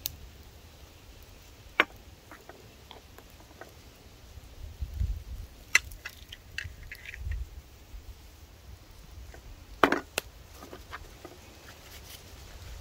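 Gloved hands seasoning raw ribs on a wooden cutting board: salt shaken from a small bottle and the meat handled and rubbed, heard as scattered soft clicks and taps with a few sharper knocks, two close together about ten seconds in. A low rumble comes and goes.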